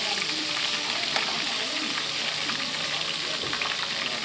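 Hot cooking oil sizzling and crackling steadily in a wok, with marinated pork slices pan-frying in it.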